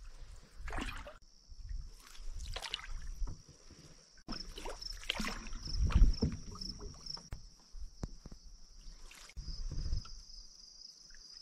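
Canoe paddle strokes splashing in the water, a few seconds apart, with wind rumbling on the microphone and a steady high buzz behind.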